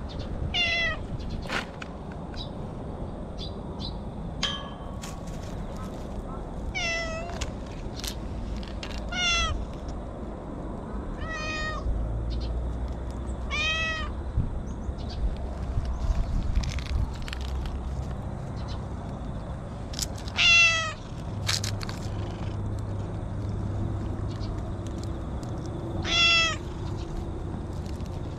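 Ginger tabby stray cat meowing about seven times, each call a few seconds apart, the loudest two near the end.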